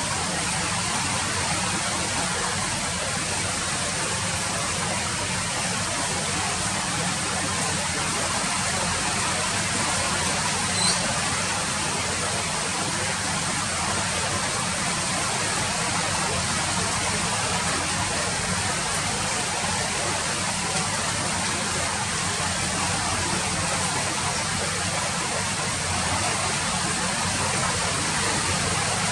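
Steady rain falling, an even hiss that never lets up, with one brief sharper tick about eleven seconds in.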